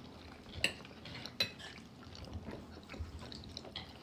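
Cutlery clinking and scraping against a dish, with two sharper clinks about half a second and a second and a half in and softer taps after.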